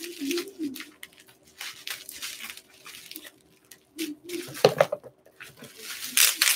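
Packing wrap crinkling and rustling in irregular bursts as a wrapped cup is pulled out of it, with the loudest bursts a little before five seconds and about six seconds in.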